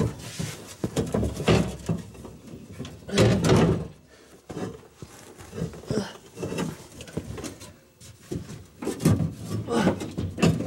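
Irregular clunks, knocks and scrapes of hands-on work under a truck: the fuel tank and its fittings being handled, and a body shifting on the floor. The clunks come in clusters, loudest about three seconds in and again near the end.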